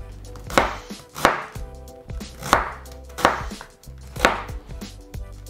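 A big kitchen knife thinly slicing white cabbage on a chopping board: six sharp cuts at a slow, uneven pace.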